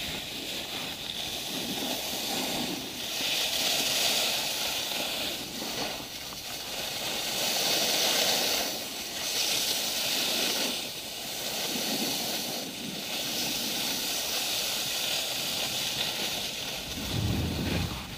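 Skis carving and scraping over packed snow on a downhill run: a hiss that swells and fades every few seconds with the turns. A low rumble near the end.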